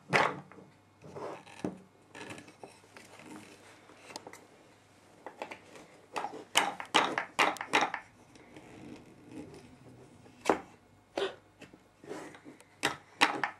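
Wooden toy hammer knocking on the wooden pieces of a child's toy toolbox: irregular taps, with a quick run of several strikes about six to eight seconds in and a few more near the end.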